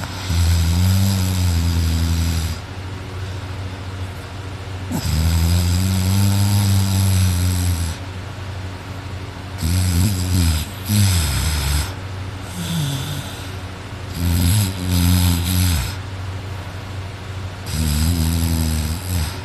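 A person asleep on their back snoring loudly, with a low buzzing snore every few seconds, each lasting one to two seconds, and quieter breathing in between.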